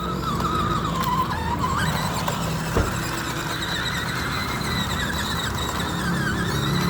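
Toy RC car's small electric motor whining, its pitch dipping and rising as it slows and speeds up, with a single knock nearly three seconds in.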